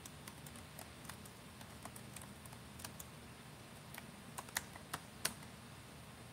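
Typing on a computer keyboard: soft, irregular key clicks, with a few louder clicks about four and a half to five seconds in.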